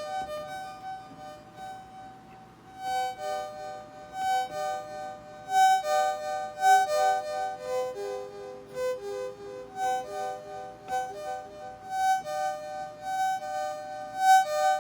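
Modular synthesizer voice played from a barre controller: a reedy, violin-like tone stepping through a melodic line of short sustained notes, a few notes a second. It is quieter for the first few seconds and picks up again about three seconds in.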